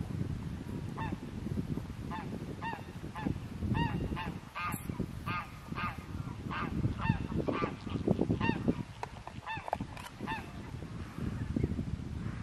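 Geese honking repeatedly, short arched calls coming about twice a second and sometimes overlapping, over a low, uneven rumble.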